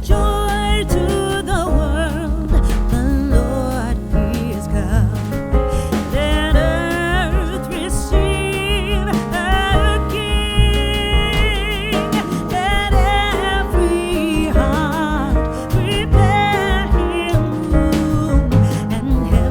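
Background music: a song with a sung vocal line with vibrato over instrumental accompaniment with a steady beat.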